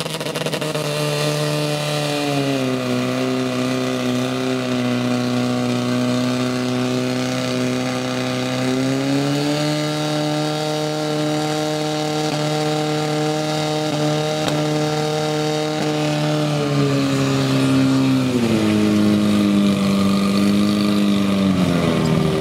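Portable fire pump engine running at high speed, pushing water through the hoses to the nozzles. Its pitch drops a little about two seconds in, rises again around nine seconds, and falls in two steps near the end.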